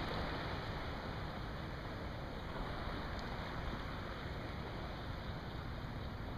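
Steady wash of wind and calm, rippling water, with wind rumbling on the microphone.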